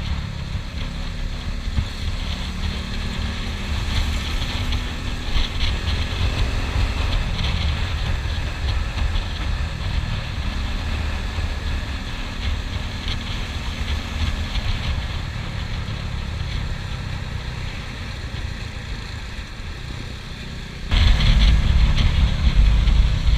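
KTM Duke 390 single-cylinder motorcycle riding steadily at road speed, its engine drone mixed with wind rush over the camera. About 21 s in it gets abruptly louder and rougher as the shot changes.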